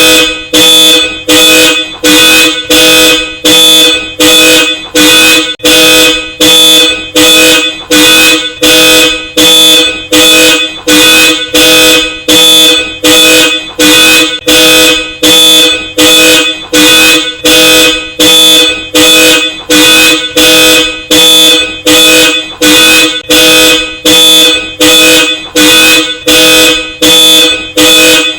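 Car alarm sounding through a Hella Supertone twin-tone horn: loud, evenly repeated honks, about three every two seconds, in a steady unbroken rhythm.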